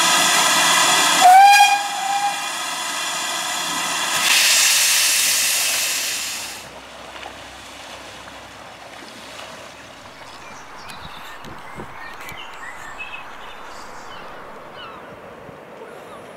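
Steam locomotive whistle blowing a long steady note, with a short rising blip about a second in, then a loud burst of steam hissing that dies away about six seconds in, leaving only faint background sound.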